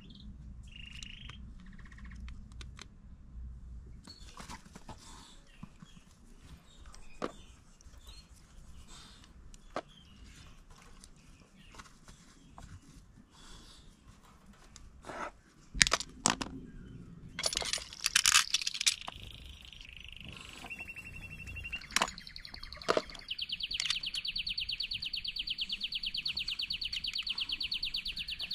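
Clicks, snaps and taps of hand tools working a cable end with a wire stripper, the sharpest clicks a little past the middle. About two thirds in, a steady, rapid, high chirping trill starts and keeps going.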